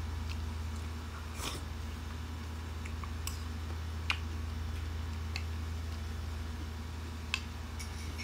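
Close-up mouth sounds of a person eating creamy fruit salad: chewing, with a wet smacking or slurping sound about one and a half seconds in. A couple of sharp clicks from the metal spoon against the ceramic bowl, over a steady low electrical hum.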